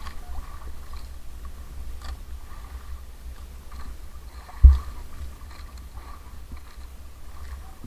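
Steady low rumble of wind and sea around a small outrigger fishing boat, with one sudden heavy low thump about four and a half seconds in.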